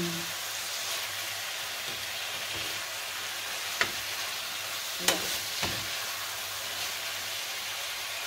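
Food sizzling steadily as it fries in a pan, with three short sharp clicks about four and five seconds in.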